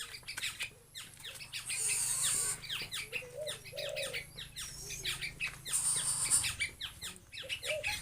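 Birds calling: a dense run of quick, high, downward-sweeping chirps, with a few short, low warbling notes mixed in.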